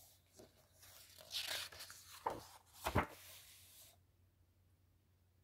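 A page of a paperback coloring book being turned by hand: a dry paper rustle that builds over a couple of seconds, with two short sharp flaps about two and three seconds in, the second the loudest.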